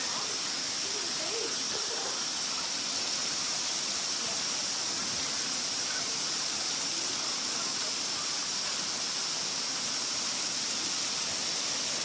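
Steady rushing of water from a creek waterfall spilling into a rock pool, with a steady high-pitched hiss over it.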